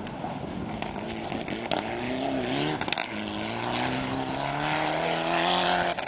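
Rally car engine accelerating hard as the car approaches, getting louder. It is pulled up through the revs, with a brief drop about three seconds in, as at a gear change, and then rises steadily again.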